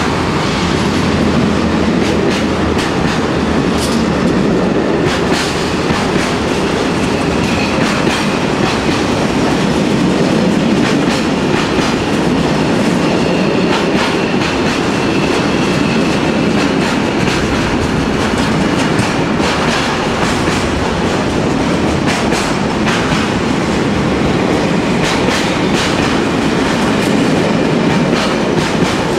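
Container freight train rolling past close by: a steady loud rumble of steel wheels on rail, broken by repeated clicks as the wagons' wheelsets pass over rail joints.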